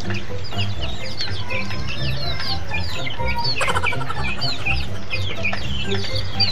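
A flock of chicks peeping constantly, many short high chirps that slide down in pitch and overlap, with one fuller call about three and a half seconds in, over a steady low hum.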